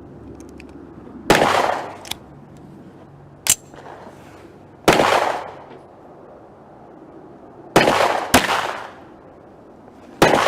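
Smith & Wesson Victory .22 LR pistol firing CCI Mini-Mag rounds: about five sharp cracks a few seconds apart, each followed by a short echo, two of them about half a second apart near the end. A shorter, sharper click comes between the first two shots.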